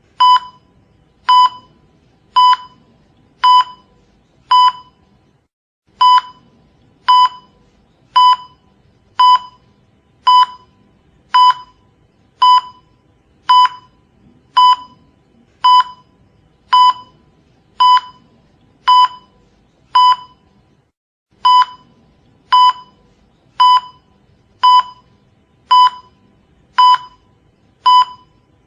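Cardiac monitor beeping: a short, high beep about once a second in a steady, slow pulse rhythm, with two slightly longer gaps between beeps.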